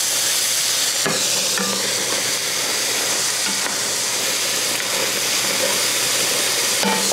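Sliced onions and mushrooms sizzling steadily in bacon fat and butter in a skillet, with a spatula stirring through them. A light knock sounds about a second in.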